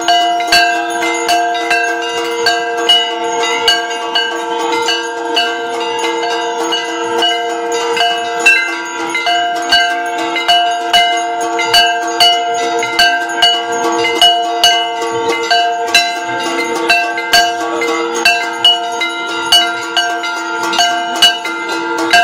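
Aarti bells ringing continuously, several ringing tones sounding together over a regular beat of sharp metallic clangs.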